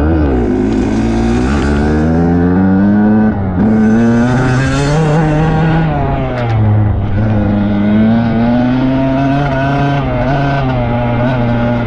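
Dirt bike engine under hard throttle, heard from on board, revving up and down several times. There is a brief cut in the engine note a little after three seconds.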